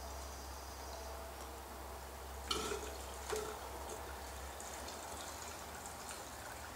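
Gasoline trickling faintly from a plastic gas can into a string trimmer's fuel tank. Two light knocks come near the middle, a little under a second apart, over a steady low hum.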